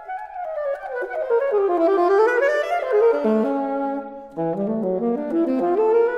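Unaccompanied alto saxophone playing a fast melody of quick single notes in stepwise runs, sweeping down and back up. There is a brief break about four seconds in, then it continues in the low register.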